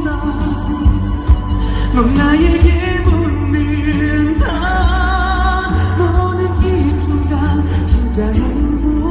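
A man singing a pop ballad live into a microphone over instrumental accompaniment, holding long notes over a strong bass.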